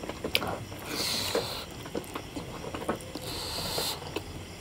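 Close-miked chewing and wet mouth clicks from eating rice and pork curry by hand, with two hissing breaths through the mouth, about a second in and again near the end, typical of reacting to chili heat.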